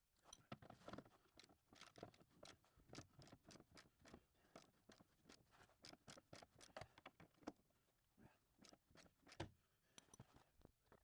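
Near silence with many faint, irregular clicks and taps.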